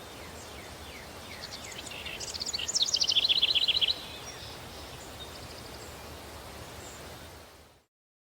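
Stock countryside daytime ambience: birds chirping over a steady outdoor background, with one loud rapid trilled song about two to four seconds in. It fades out near the end.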